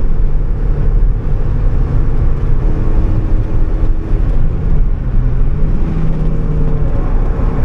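Mazda MX-5's four-cylinder engine running under load on track, heard inside the cabin with loud road and wind noise. The engine note drops around the middle and then climbs again.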